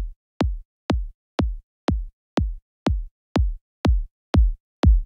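Electronic kick drum playing in a steady loop, about two hits a second, each a short thump that sweeps down in pitch. It runs through Bitwig's Compressor+ set to heavy over-compression, which pulls down the loud low end of the kick and leaves mostly its top end. The hits grow somewhat louder toward the end.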